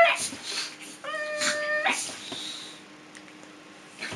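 Small dog whining in play: a short high whine at the very start, then a longer steady, high-pitched whine about a second in.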